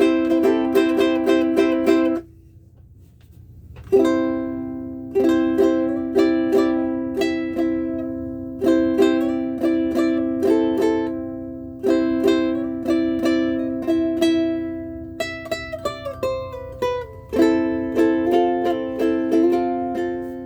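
Solid mango Ohana CK-220G ukulele with high-G strings played solo: strummed and picked chords that ring out, with a short pause about two seconds in, then more chords and a run of single picked notes in the second half.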